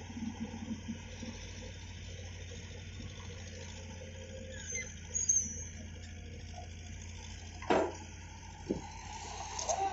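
Volvo amphibious excavator's engine running with a steady low hum as it works its boom, with a brief high squeak about five seconds in and a sharp knock near eight seconds.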